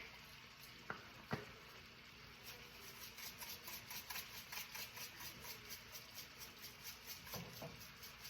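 A couple of light clicks, then a seasoning shaker shaken over vegetables in a pan in a quick, even rhythm of about three shakes a second.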